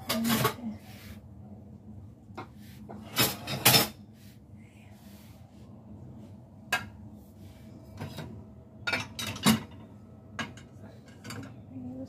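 Ceramic plates and bowls clinking against each other and against the dishwasher's wire rack as they are set in one by one, in several short clusters of knocks, the loudest about three and a half seconds in.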